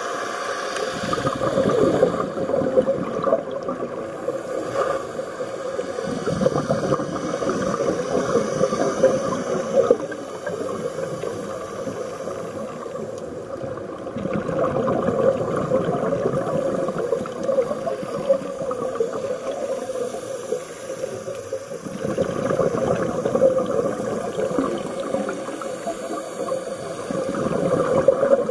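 Scuba regulator exhaust bubbles gurgling underwater in repeated bursts about every seven or eight seconds, one with each exhalation, over a steady underwater hum.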